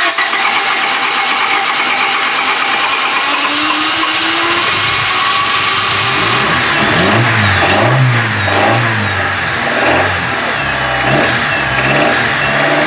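1995 Honda Civic's four-cylinder engine being cranked by the starter, catching about six seconds in, then revved up and down repeatedly as the throttle is pumped to keep it running after a hard start.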